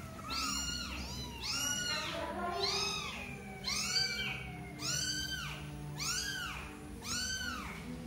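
Very young kittens mewing over and over: high-pitched cries that rise and fall, about two a second, with calls from more than one kitten overlapping.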